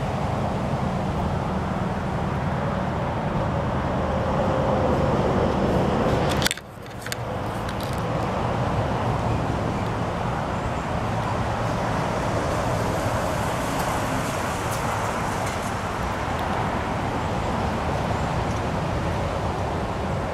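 Steady outdoor background rumble with no distinct events, dipping sharply for a moment about six and a half seconds in.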